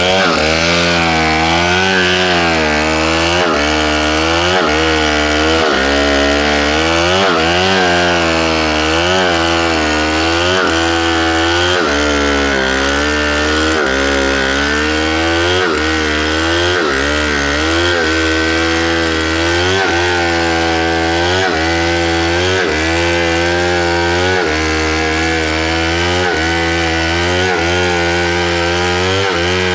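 Stihl MS070 two-stroke chainsaw ripping lengthwise along a coconut trunk, running hard in the cut, its engine pitch rising and falling every second or two as the chain bites into the wood.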